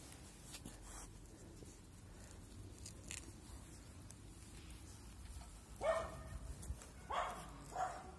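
A puppy giving short, high-pitched play barks, three of them starting about six seconds in.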